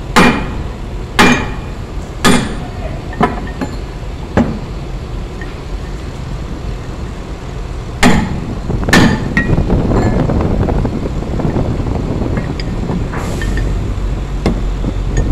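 Sharp metal-on-metal blows on a Kenter shackle as it is knocked apart: five strikes about a second apart, then two more after a pause. A rough scraping noise follows, over a steady low rumble.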